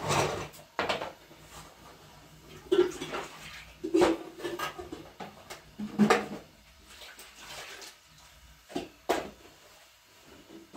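Pots and utensils being handled, with separate sharp knocks and clinks every second or two, some briefly ringing.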